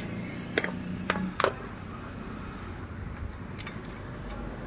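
Light metal clicks from hand tools being handled on the floor: three sharp clicks in the first second and a half, then a few fainter ticks about three seconds in.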